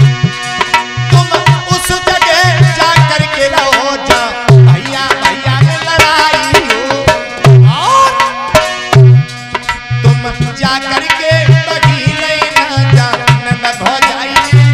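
Devotional bhajan: a man singing into a microphone over hand-drum accompaniment, with deep drum strokes repeating in a steady rhythm and quick sharper strikes between them.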